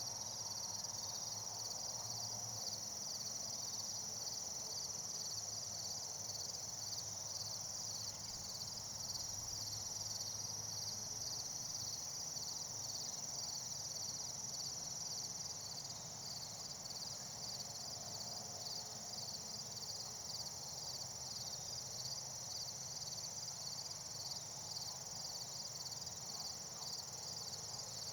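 Insects calling in a steady chorus: a continuous high trill with a repeating chirp pulsing beneath it.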